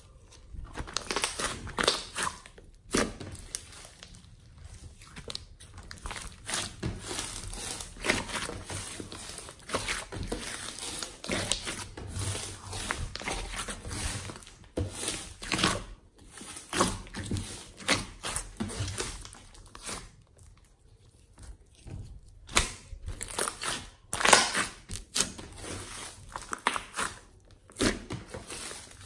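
A large mass of homemade slime mixed with clay being stretched, folded and squeezed by hand, giving irregular sticky clicks and squishes, with a brief lull about two-thirds of the way through.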